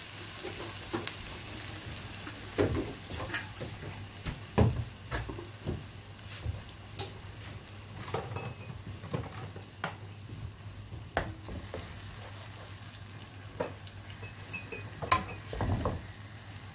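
Blended onion paste sizzling as it fries in oil in a wok, with irregular knocks and scrapes as a wooden spatula stirs it against the pan.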